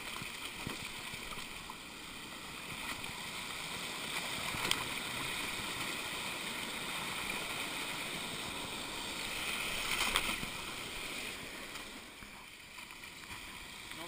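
Shallow, fast-running stream rushing over stones, with water splashing as someone moves through it and a couple of sharp knocks, about five and ten seconds in.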